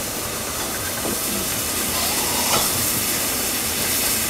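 Steady hiss of steam from the LNER Peppercorn A1 Pacific steam locomotive Tornado, getting a little louder about two seconds in.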